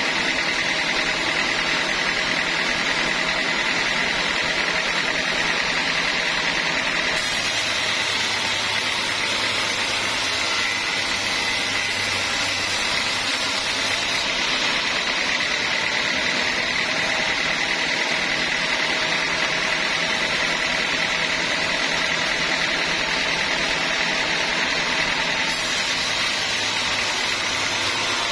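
Homemade band sawmill running and sawing a teak log: a steady mechanical noise with a high whine from the blade. The sound shifts abruptly three times.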